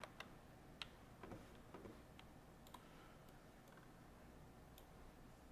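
Faint, scattered clicks of a computer mouse, a dozen or so sharp single clicks at uneven intervals, over near-silent room tone.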